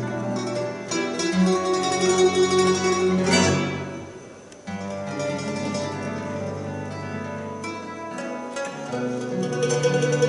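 Mandolin, acoustic guitar and double bass playing together as a plucked-string ensemble. About four seconds in the music fades down, and it comes back in suddenly less than a second later.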